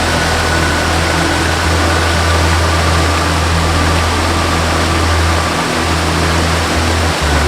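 Steady rushing of a waterfall, with a soft melody of long, held low notes that shift slowly underneath.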